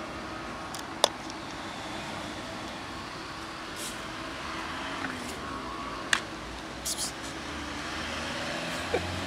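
Street traffic noise with a motor vehicle's engine hum, broken by a few sharp clicks and taps; the low engine hum grows near the end.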